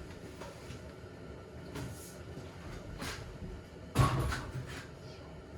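Handling noises as a chainsaw is readied: a few short scrapes or knocks, and one loud clunk about four seconds in. No engine running.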